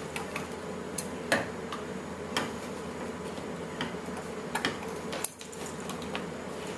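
Scissors snipping through a plush toy's fur and stitching: sharp, irregular clicks.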